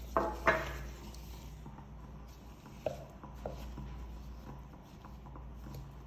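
A metal spoon stirring a thick mix of melted dark chocolate, chopped nuts and coconut in a mixing bowl: soft scraping, with two light clicks of the spoon against the bowl about halfway through. A brief voice sound comes right at the start.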